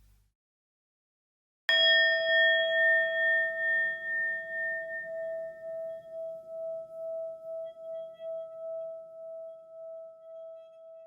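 About two seconds in, a single metal bell-like chime is struck and rings out, its tone pulsing slowly as it fades over about nine seconds.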